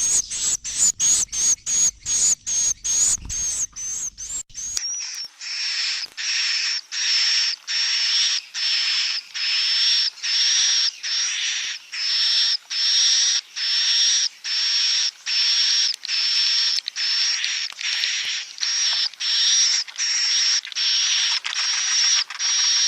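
Recorded swiftlet calls of the kind played as a roosting ('inap') lure for swiftlet nest houses: a steady run of high chirps. For the first few seconds they come short and rapid; about five seconds in they change to longer, fuller chirps, about one and a half a second.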